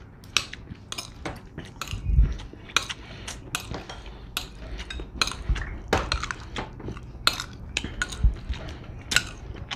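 Metal spoon and fork clinking and scraping on a ceramic plate while gathering noodles, in irregular sharp clicks, with a few dull knocks.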